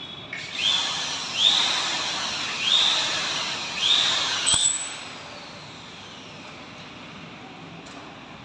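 Power drill boring into the ceiling overhead in four bursts about a second apart, each starting with a rising whine. It stops with a sharp click a little after four and a half seconds.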